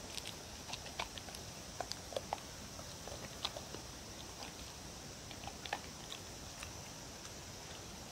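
A dog chewing and picking up soft cubes of tofu and potato from a wooden board: irregular wet smacks and small clicks of the mouth, thinning out and stopping after about six or seven seconds.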